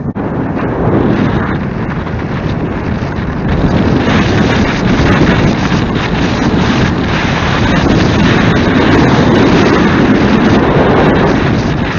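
Wind rushing and buffeting on the microphone of a camera moving along a street, getting louder as it picks up speed about a second in and again around four seconds in.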